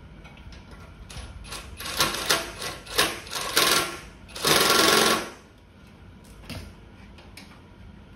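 Rapid mechanical rattling and buzzing from work on the metal casing of a gas cooktop: a run of irregular sharp clatters, then a loud buzz lasting about a second around the middle, after which it goes quiet to a low background.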